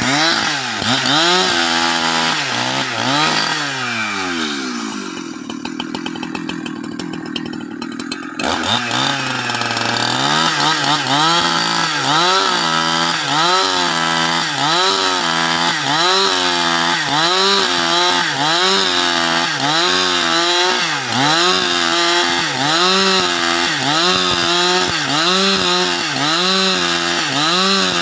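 Husqvarna 365 two-stroke chainsaw working through wood to cut planks. For a few seconds about five seconds in, the engine holds a steadier, lower pitch. From about eight seconds in, its speed rises and falls about once a second.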